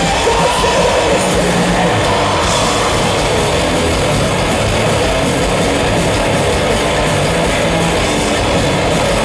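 Heavy metal band playing loud and without a break, a dense wall of distorted sound over low shifting bass notes, as heard from the crowd.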